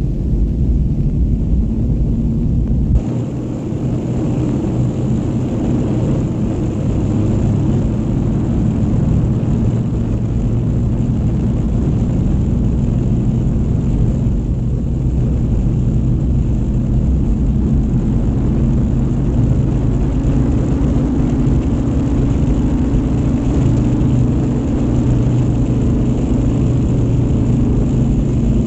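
Propeller airliner engines droning steadily: the Handley Page HP42's four radial engines as the airliner comes in. The sound changes abruptly about three seconds in, then the drone runs on.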